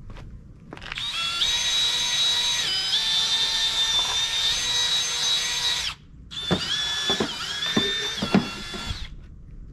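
Cordless drill spinning a Ryobi soft scrub brush against a mower wheel: a steady motor whine over a bristle scrubbing hiss, in two runs, the first about five seconds long and the second shorter after a brief stop about six seconds in. The pitch dips slightly now and then as the brush bears on the wheel, and a few knocks come during the second run.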